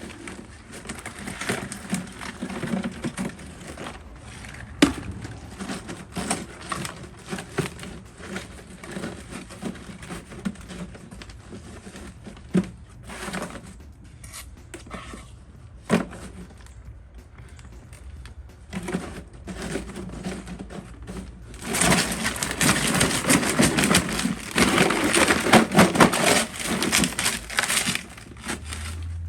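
Rubble and rough gravel going into a soakaway pit, clattering and scraping. There are scattered knocks at first, then a dense stretch of crunching and scraping for the last several seconds.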